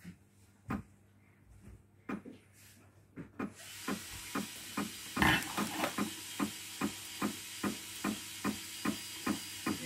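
Zebra ZD621R label printer running an RFID calibration. A few faint clicks at first, then about three and a half seconds in a steady hiss sets in, with regular clicks about two and a half times a second as the printer steps the label media forward, and one louder clunk about five seconds in.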